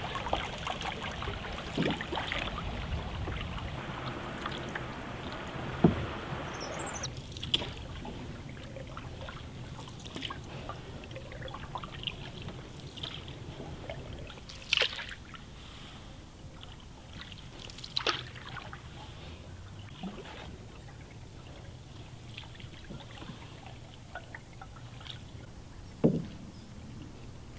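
Canoe paddling on calm water: water washing along the hull for the first several seconds, then quieter, with a handful of short, sharp paddle strokes in the water.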